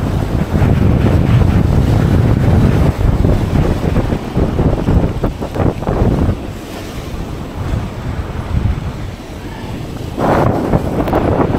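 Strong wind buffeting the microphone over choppy sea waves breaking against rock armour. The gusts ease for a few seconds in the middle and pick up again near the end.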